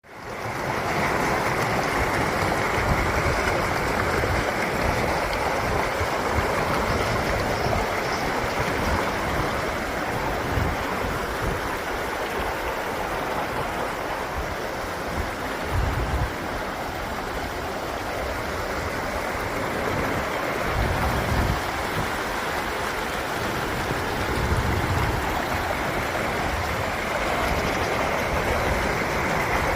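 Mountain stream rushing over rocks in a steady, full rush of water. It fades in within the first second, with a few brief low rumbles along the way.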